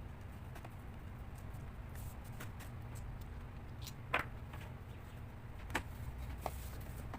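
A few small, sharp clicks and taps from hands working on the laptop's parts, the loudest about four seconds in, over a steady low hum.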